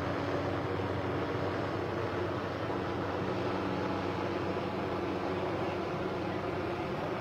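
Steady mechanical hum with a few low steady tones, like a motor running at a constant speed.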